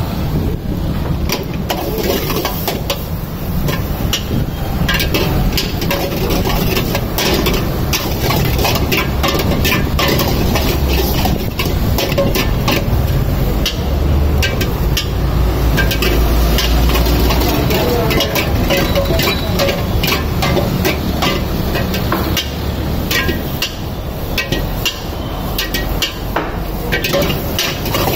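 Steel ladle repeatedly clanging and scraping against a wok while stir-frying fried rice, in quick irregular strikes over a steady low rumble.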